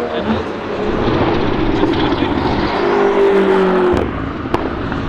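BMW M6 GT3's 4.4-litre twin-turbo V8 racing engine running hard past, with a held engine note that cuts off abruptly about four seconds in, followed by a single sharp tick.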